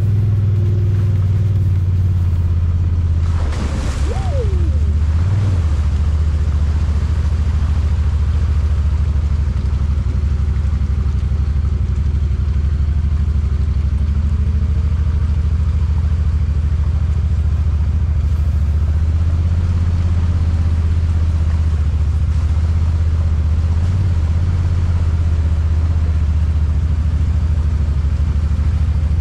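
Side-by-side UTV engine running steadily while riding, a constant low drone heard on board. A brief burst of noise comes about three to four seconds in.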